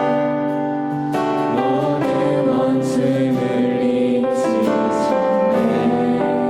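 Worship music: held instrumental chords changing every second or two, with a group of voices singing along.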